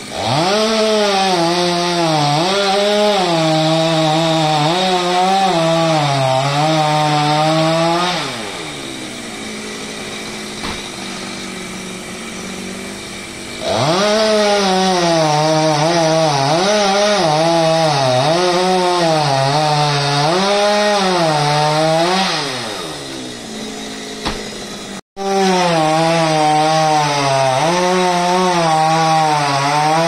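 Chainsaw cutting through a coconut palm trunk: the engine revs up and runs at high speed for about eight seconds, its pitch dipping and recovering as the chain bites into the wood, drops back to idle, then makes two more cuts of similar length, the last starting about three-quarters of the way through.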